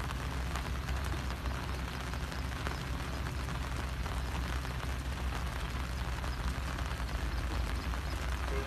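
Rain falling steadily, faint drops pattering on an umbrella, over a steady low rumble.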